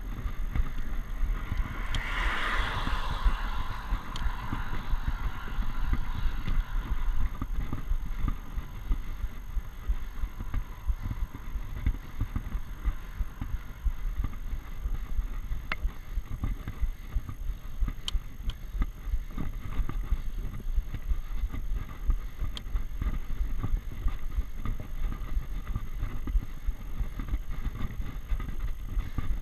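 Rumble of wind and road on a GoPro riding on a bicycle climbing a road hill. About two seconds in, a hiss rises and fades over the next few seconds, and a few faint ticks come later.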